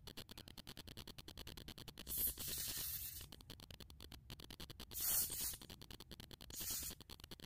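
Three short hissing squirts from a pump bottle of white face cream being dispensed, the first about two seconds in and the longest, the others shorter.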